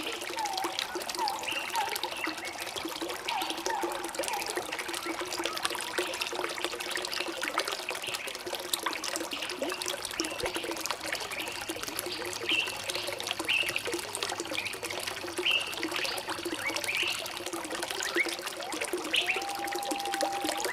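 A stream of water trickling steadily, with birds calling over it: a run of short repeated notes in the first few seconds, scattered higher chirps in the second half, and a single held whistle near the end.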